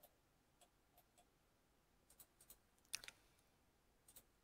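Near silence with a few faint, short clicks, the loudest a close pair about three seconds in.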